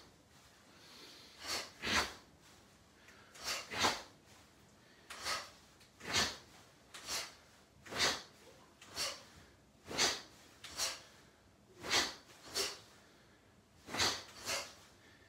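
Short, sharp exhalations from two people throwing fast karate punches at their own pace, roughly one to two every second.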